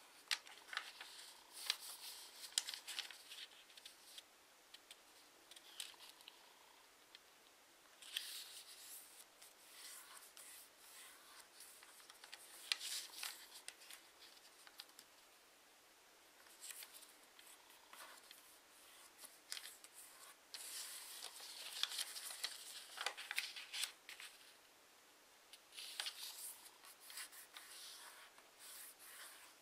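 A sheet of origami paper being folded and creased by hand, rustling and crinkling in bursts of one to three seconds with quiet pauses between.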